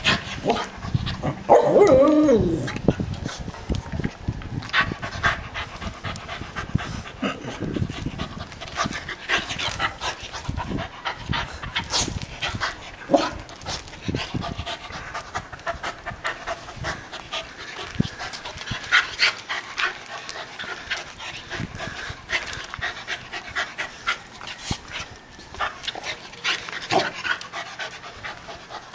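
A dog panting hard while it plays, over frequent short scuffs and clicks. A brief pitched sound about two seconds in is the loudest moment.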